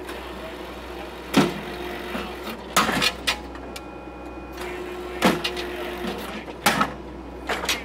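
Case TV450 skid steer's diesel engine running steadily, heard from inside the cab, under loud hammer blows of the Blue Diamond post driver striking a wooden post. There are about five main blows, roughly one every second and a half, some followed by quick smaller knocks.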